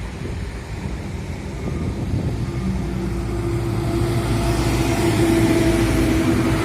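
Bus diesel engine running with a low rumble and a steady drone that grows louder through the second half.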